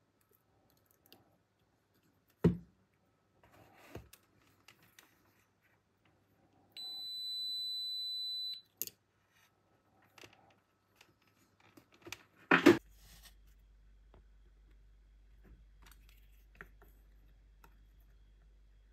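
Handling clicks and knocks of small parts on a table, with one loud knock about two and a half seconds in and the loudest about twelve and a half seconds in. In between comes a single steady high beep from a digital multimeter, lasting nearly two seconds.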